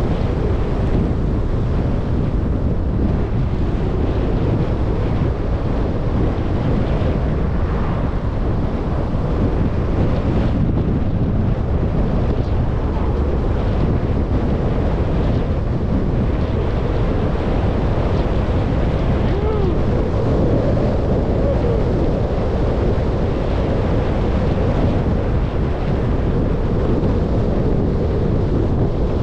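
Wind buffeting the microphone of a camera on a moving bicycle, a steady heavy rumble. An oncoming car goes by about seven seconds in.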